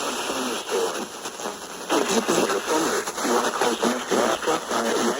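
Radio static hiss from a receiver, with a voice coming through the noise from about two seconds in.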